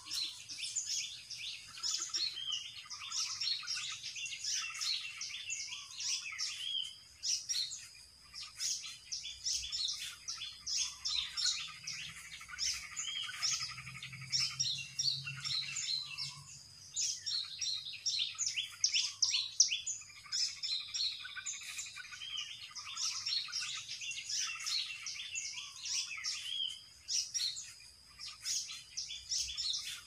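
Small birds chirping in quick, busy runs of short high calls, with a few brief lulls.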